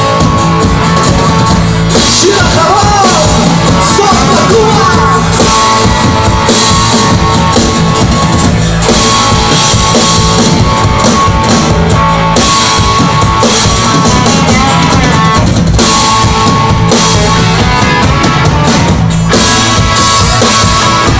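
A rock band playing live, with electric and acoustic guitars over a drum kit, loud and steady throughout.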